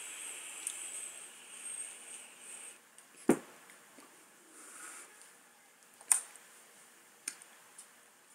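Faint airy hiss of a draw and exhale on a brass mechanical vape mod, followed about three seconds in by a single sharp knock as the mod is set down on the table, then a few fainter clicks.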